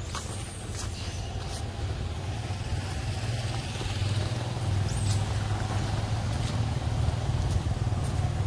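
Steady low rumble of a motor vehicle engine running, growing louder about four seconds in, with a couple of short high chirps above it.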